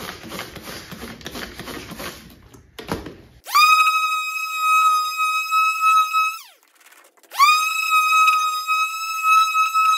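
Electric palm sander wet-sanding a plastic headlight lens with 1000-grit paper. The motor starts about three and a half seconds in with a rising high whine, runs steadily, winds down and stops about three seconds later, then starts again a second after that and runs on. Before the sander starts, there is a rough hiss of water being sprayed onto the lens from a hand spray bottle.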